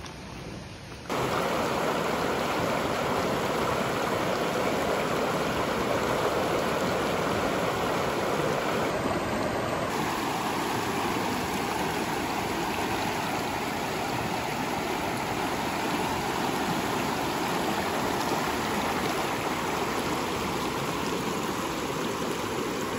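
Shallow creek water running and rippling over stones, a steady rushing that starts suddenly about a second in.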